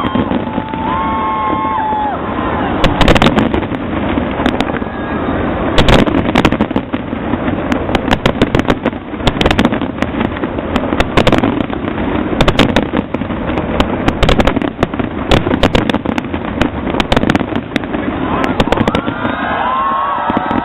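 Large fireworks display going off continuously, a dense run of bangs and crackles, several a second, over a steady rumbling wash. Crowd voices rise briefly near the start and again near the end.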